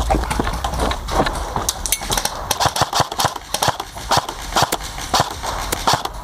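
Airsoft rifle firing a run of single shots: sharp clacks at uneven intervals, coming thicker from about a second and a half in.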